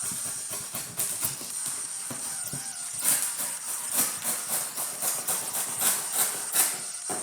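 Utility knife slicing through cardboard in short scraping strokes, about three a second from about three seconds in, over background music.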